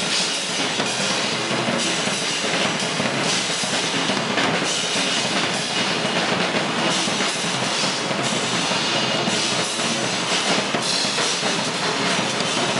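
Live noise music played loud: a dense, unbroken wall of noise with no pauses.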